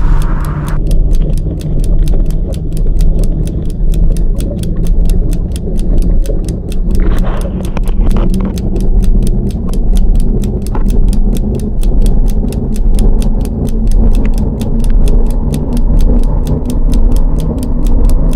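Loud, muffled low rumble of water heard through a submerged GoPro's waterproof housing, swelling and fading about once a second, with a fast, even ticking over it.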